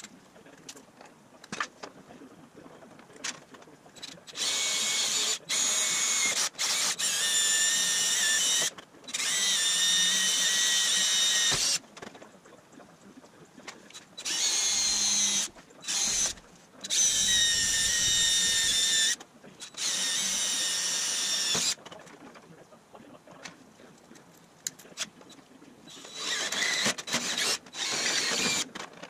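DeWalt cordless drill/driver drilling holes through an aluminum dashboard panel, a steady motor whine in about six runs of a few seconds each, with short handling clicks between them.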